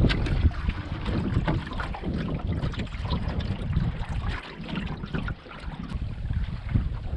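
Wind buffeting the camera microphone over water rushing and splashing along the hull of a cedar strip sailing canoe moving through choppy water, with irregular small splashes.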